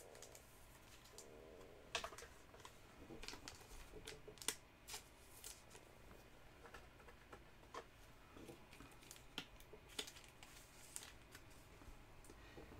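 Faint, irregular clicks and crinkles of a trading card being handled in a clear plastic sleeve, over a quiet room.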